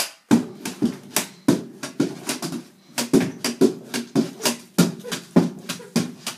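Pogo stick bouncing, its tip knocking on the porch boards and its spring clanking with each hop, about three sharp hits a second.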